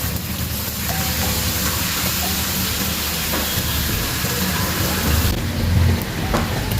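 Steady kitchen cooking noise: a hiss over a low rumble, with a few faint clicks. The high part of the hiss drops away about five seconds in.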